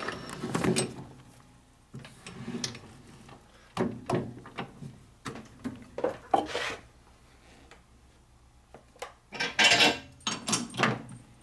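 Irregular metal clanks, knocks and scrapes as a transmission part is fitted and clamped in a six-jaw lathe chuck. There is a louder rasping burst about ten seconds in.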